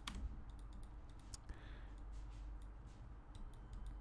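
Computer mouse clicks: a few sharp, quiet clicks, the clearest right at the start and about a second and a half in, over a faint steady low hum.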